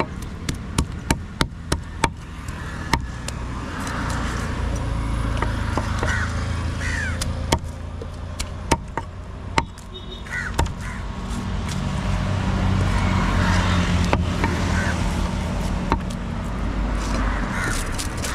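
A large broad-bladed knife knocking and scraping on a wooden chopping stump as a tilapia is scaled and cut. A quick run of sharp knocks comes in the first two seconds, then single knocks now and then. A low traffic rumble swells and fades in the middle, with short bird calls over it.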